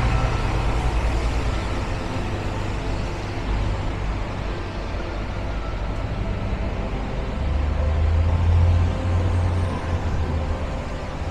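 Busy city street traffic: a steady low engine rumble from passing and idling vehicles over a wash of road noise, swelling louder about eight seconds in.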